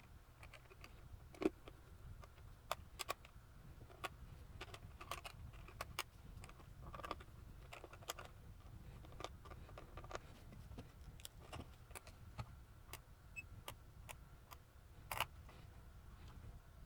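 Irregular light clicks and taps of small plastic and metal parts being handled while working on a handheld digital multimeter, with a sharper click about a second and a half in and another near the end.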